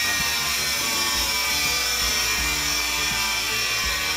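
Ferguson Videostar 3V30 top-loading VCR running with its cover off, a steady whirring hiss from its motors and spinning head drum. The deck is switched to play but its loading mechanism has stopped short of full play mode.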